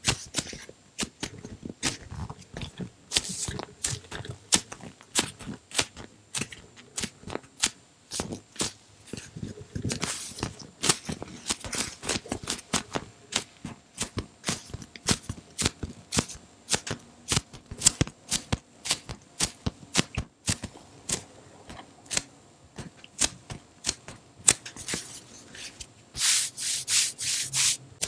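Hands squeezing, scratching and pressing a giant donut-shaped foam squishy close to the microphone: a stream of irregular soft crackles and scratches, with a louder stretch of rubbing near the end.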